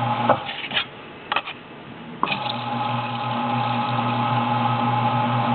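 Lap-Sharp motorized sharpening machine running, its water-lubricated abrasive disc spinning with a steady hum and whine. There are a few light knocks in the first two seconds; then from about two seconds in the sound grows louder and stays steady as a card scraper is held flat on the disc.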